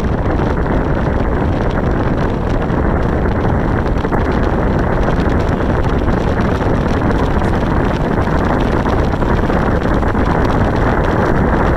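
Steady wind noise buffeting the microphone, with the rumble of a moving vehicle underneath; loud and even throughout.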